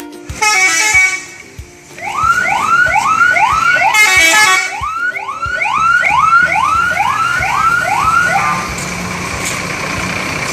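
Bus 'telolet' horn, a set of musical air horns, starting with a short loud multi-tone blast. It then plays a quick run of rising, whooping notes, about two a second for several seconds, and ends on a held tone, over a steady low rumble.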